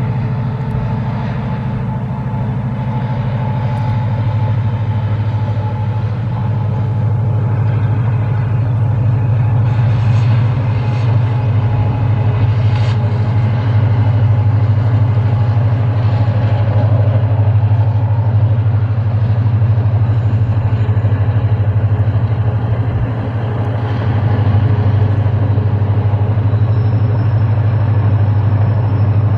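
WDP4D diesel locomotive's two-stroke EMD engine working under load as it hauls a passenger train, heard from a distance as a steady low drone that grows slightly louder a few seconds in.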